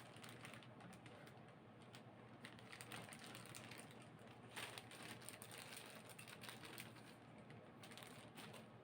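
Figure packaging being handled: faint, irregular small clicks and rustles, a little louder about halfway through.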